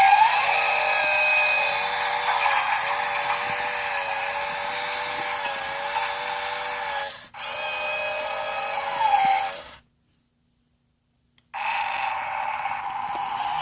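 A toy power tool whirring: it spins up, runs steadily for about seven seconds, cuts out for a moment, runs again and winds down. After a short silence a second, different steady whirring starts near the end.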